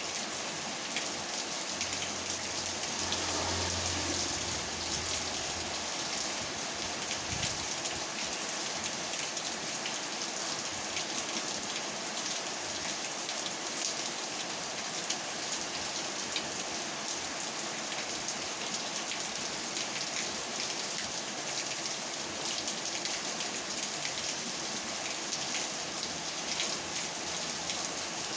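Steady rain falling, an even hiss with many sharp drop ticks throughout. A low hum rises under it for a few seconds near the start.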